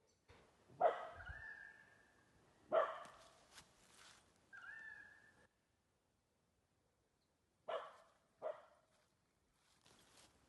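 Four short, sharp animal calls, two close together near the start and two near the end, the first two trailing into a held high note.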